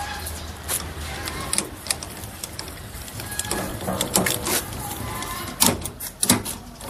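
Irregular mechanical clicks and knocks from the blade-tilting mechanism of a combination woodworking machine, worked by hand while the saw is not running, with two sharp, loud knocks near the end.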